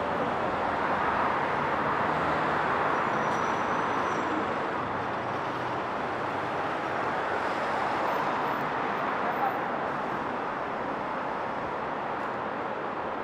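Steady city street ambience: road traffic running as a constant wash of noise, with people's voices mixed in.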